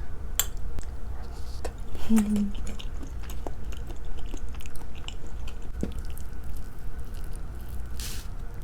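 Close-miked mouth sounds of a person chewing sushi, with small wet clicks. There is a brief hummed vocal sound about two seconds in and a short breathy hiss near the end.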